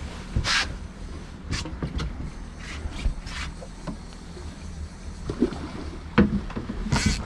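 A boat's outboard motor running low and steady under wind noise, with a few short splashes and knocks as a Chinook salmon is netted alongside the boat.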